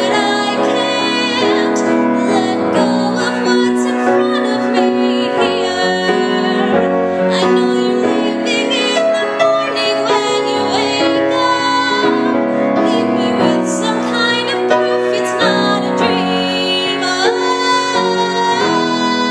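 A woman singing a slow pop ballad over solo piano accompaniment, holding long notes above the piano chords.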